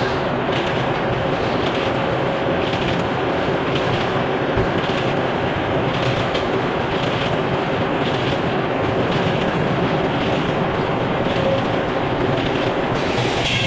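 Sawmill running with a steady, loud mechanical drone and a faint steady hum.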